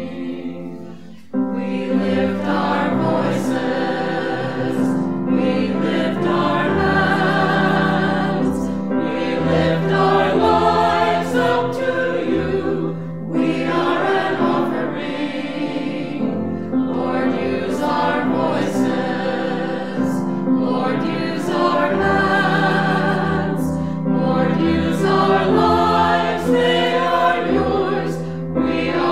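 Background music: a choir singing sustained, phrased lines, the piece coming in abruptly about a second in.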